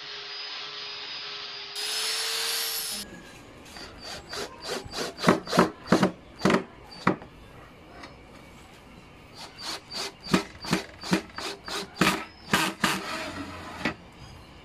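A corded angle grinder running for about three seconds, a steady motor tone that gets louder near the end. Then a cordless drill drives screws through a steel angle into wood in a run of short, quick bursts.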